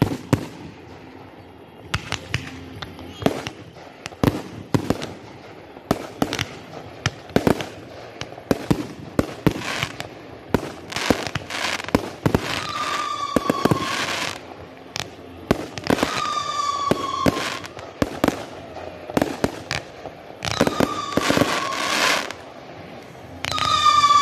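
Aerial fireworks going off in a rapid, uneven run of sharp bangs and crackles. From about halfway in, four high whistles cut through, each lasting about a second and dropping slightly in pitch, the last one loudest.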